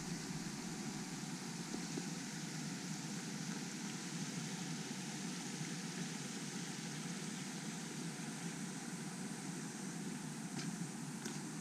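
Steady outdoor rushing noise with no distinct events, of the kind made by flowing water or wind on the microphone. A few faint ticks come near the end.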